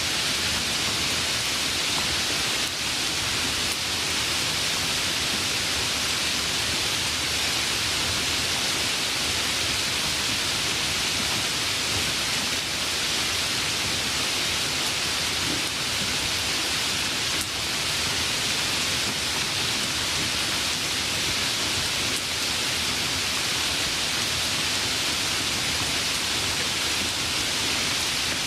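Steady rain falling without a break, an even hiss that holds at one level.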